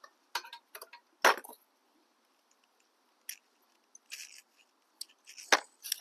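Irregular metallic clicks and clinks of hand tools and loosened exhaust hardware being handled, about seven sharp knocks with the loudest about a second in.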